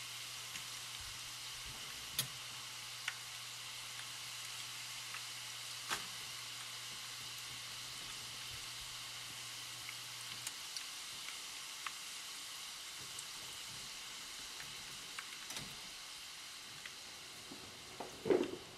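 Hot oil sizzling steadily as thin chruściki pastry dough deep-fries in a pan, with scattered sharp clicks of metal forks against the pan. A louder knock comes near the end.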